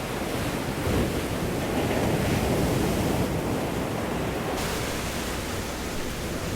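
Ocean surf breaking and washing on the beach shore, a steady rush of water that swells about a second in, with some wind on the microphone.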